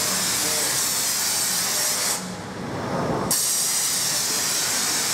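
Pressure-washer jet spraying water onto a foam-covered car, a steady hiss. The spray cuts off about two seconds in and starts again about a second later.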